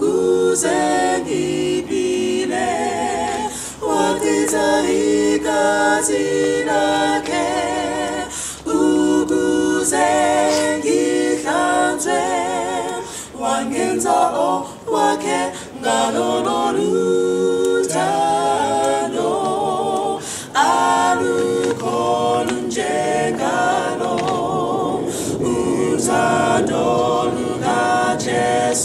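A cappella gospel singing by a mixed group of two men and two women, several voices in harmony with audible vibrato, sung in phrases with brief breaks between them.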